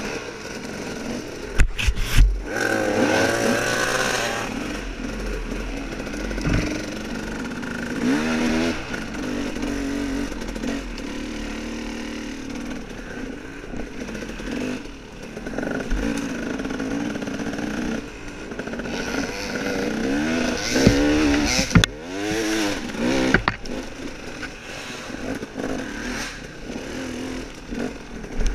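Off-road dirt bike engine running and revving up and down in several bursts, with a few sharp knocks and clatter, the loudest about two seconds in and again past the middle.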